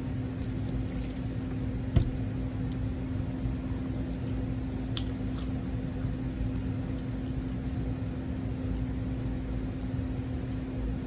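Steady low electrical hum with a low rumbling noise, over faint close-up chewing and mouth sounds, with one sharp click about two seconds in.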